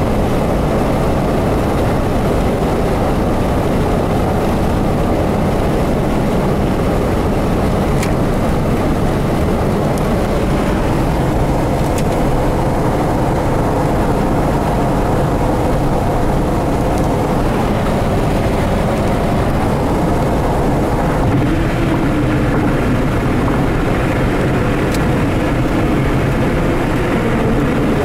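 Steady road and engine noise inside a car's cabin while driving at highway speed.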